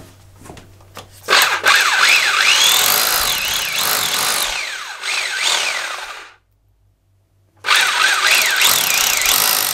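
A more powerful electric drill with a long bit boring into a hard wall, its motor whine rising and falling as the trigger is worked. It runs for about five seconds, winds down and stops, then starts again about a second later.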